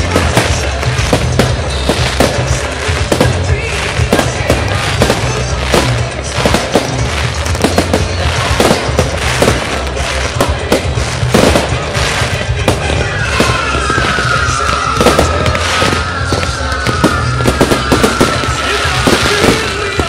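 Fireworks display: aerial shells bursting in a dense, overlapping run of bangs and crackles.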